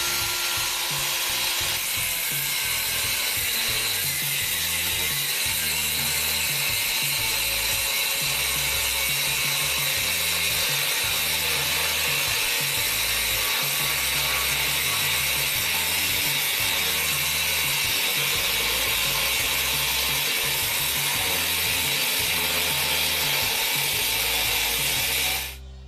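Angle grinder cutting through a bicycle crank arm where it joins the chainring, running steadily at full speed with a high, hissing grind, then cutting off suddenly near the end.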